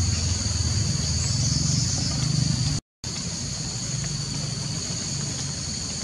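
Steady high-pitched insect chorus with a low rumble underneath; the sound cuts out for a moment about three seconds in, then carries on slightly quieter.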